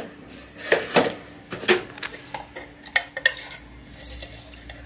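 A handful of irregular metal clinks and taps: utensils knocking against a stainless steel mixing bowl.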